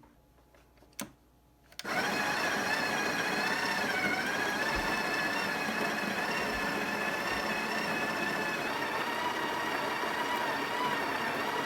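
Breville espresso machine's built-in burr grinder switching on about two seconds in and running steadily with a high whine, grinding coffee beans fine for espresso into the portafilter. A faint click comes just before it starts.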